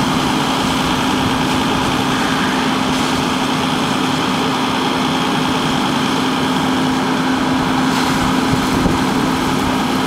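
Fire engine running steadily: a constant hum over a steady hiss.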